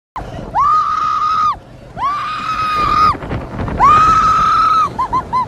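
Loud, high-pitched screaming cries: three long held calls, each about a second and sliding up at the start, then three short cries in quick succession near the end.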